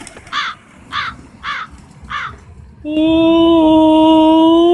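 Four short, harsh caws about half a second apart. Then, about three seconds in, a man's voice starts a long, loud, steady "ooh" note.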